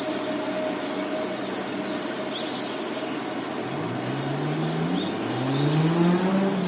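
City park ambience: a steady hum of passing traffic with small birds chirping. From about halfway a car engine accelerates, its pitch rising and then rising again as it gets louder.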